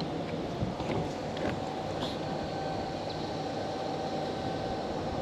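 A boat's motor running steadily: a low rumble with a constant hum, and a few faint knocks in the first couple of seconds.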